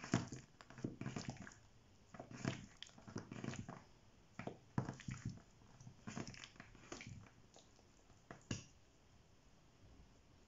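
Soft, sticky squelches and pats of focaccia dough being worked by hand on a metal board, in irregular bursts that die away after about nine seconds.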